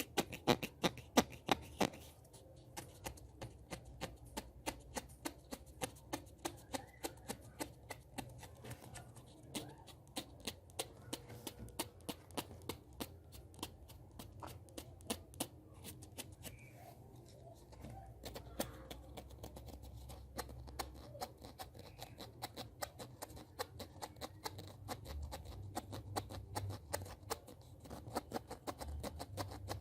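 Close-miked ASMR hand sounds: a stream of sharp clicks, about two a second.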